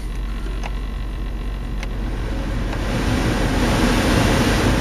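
Heater/AC blower fan in a 2002–07 Dodge Caravan blowing air, with a couple of faint clicks early on. About two and a half seconds in, the rush of air swells louder as the fan comes up to a higher speed. The lower fan speeds now run again, after the burnt-out thermal cut-off on the blower motor resistor was replaced.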